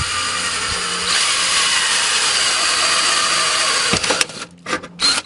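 Power drill with a 5/32 inch bit running steadily as it bores through the sheet-metal trunk lid of a car. It gets louder about a second in and stops about four seconds in, followed by a few short bursts near the end.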